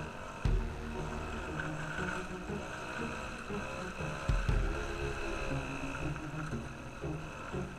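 Solo moped's small two-stroke engine running steadily while riding, its pitch shifting a little with the throttle, with wind on the microphone. Two low thumps stand out, about half a second in and again just past four seconds.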